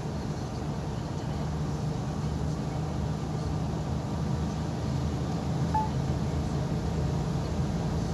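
Steady engine and road noise heard from inside a vehicle's cab while it drives at road speed, a low, even hum.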